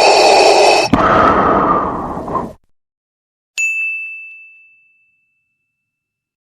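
A loud, noisy, breath-like sound effect that cuts off about two and a half seconds in. After a second of silence comes a single high bell-like ding that rings out and fades over about a second and a half.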